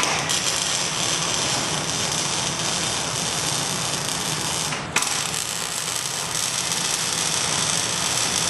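Wire-feed welding arc crackling steadily as square steel tubing is welded at a corner joint. It strikes abruptly, cuts out for a moment a little past halfway, and strikes again.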